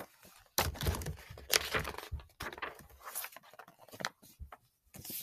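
Pages of a large picture book being turned and handled: irregular paper rustling and flapping.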